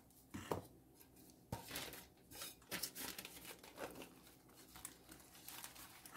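Paper lace doily rustling and crinkling as hands handle it, with a few light knocks as a cake board is set down on it.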